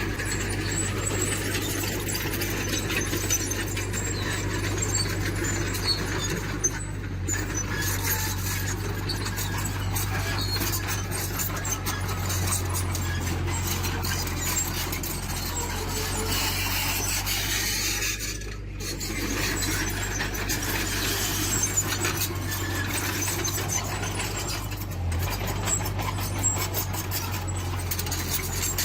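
Diesel engine of a tracked earthmoving machine running steadily, with squealing and fine clicking from the moving machinery over it.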